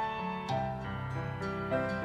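Slow, soft instrumental background music of held keyboard chords, with new notes entering twice.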